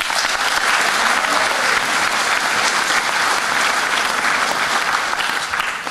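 An audience applauding: dense, steady clapping that starts abruptly and dies away near the end.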